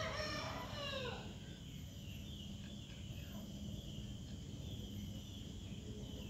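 A rooster crows once, in the distance, for about a second near the start, its call falling in pitch at the end, over steady outdoor background noise.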